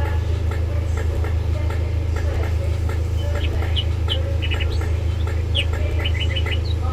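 Class 375/3 Electrostar electric train giving off a steady low hum, with a run of short high chirps about halfway through.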